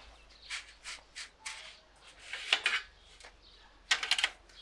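Short knocks and clatters of framed mesh noodle-drying trays being handled, with a quick rattling cluster about four seconds in as a tray is gripped and lifted.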